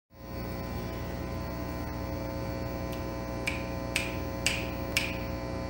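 Steady electrical hum, with four sharp clicks about half a second apart starting about three and a half seconds in.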